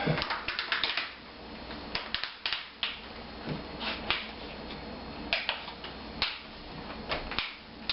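Plastic screen bezel of a Samsung NP300V5A laptop being pressed back onto the lid, its clips snapping into place: a scattered series of sharp plastic clicks and snaps.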